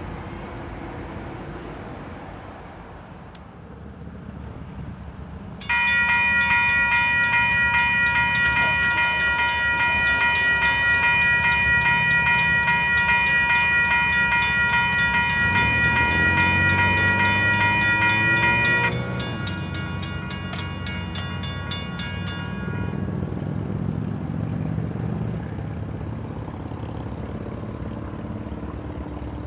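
Diesel locomotive's multi-chime air horn blowing one long blast of about thirteen seconds over the rumble of the passing train, which carries on after the horn stops.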